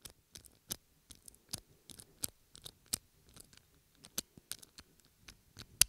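A series of irregular sharp clicks, about two or three a second, with the loudest near the end.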